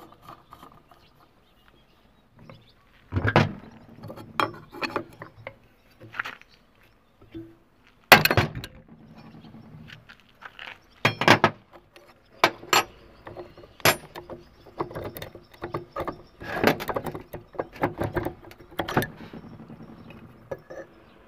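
Metal clinks and knocks of hand tools on a Honda Dio scooter engine's magneto flywheel, as a flywheel puller is worked with a spanner and the flywheel is pulled off the crankshaft. The knocks come singly and irregularly, the loudest about eight seconds in.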